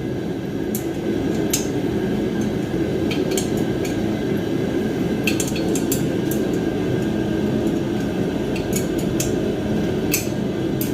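Propane heater running with a steady low rush, with scattered sharp metallic clinks of a wrench on the welding cart's steel bolts about ten times.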